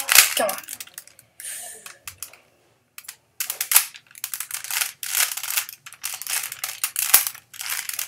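3x3 Rubik's cube being turned by hand: its plastic layers clicking and rattling in quick runs of turns, with a short pause about two seconds in.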